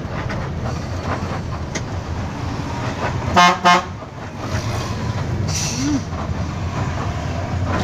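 Inside an intercity bus's cab: steady engine and road rumble, with two short, loud blasts of the bus's horn about three and a half seconds in.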